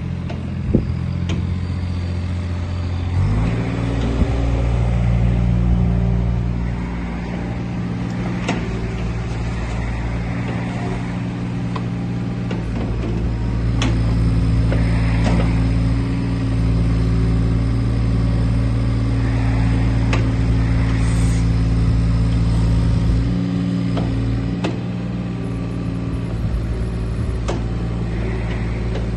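Doosan DX27Z mini excavator's diesel engine running, stepping up from idle to a higher steady speed about three seconds in and holding there, with a few short sharp knocks along the way.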